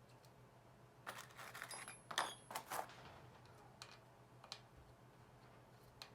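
Small metal parts and tools clinking and rattling for about two seconds, with a short metallic ring, then a few single clicks.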